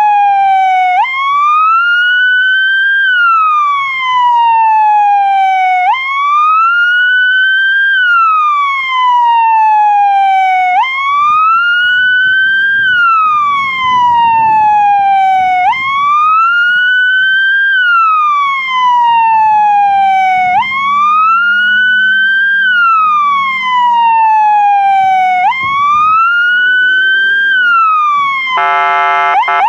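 Fire engine siren wailing in a repeating cycle about every five seconds: a jump up in pitch, a short rise, then a long falling slide. A horn sounds twice near the end.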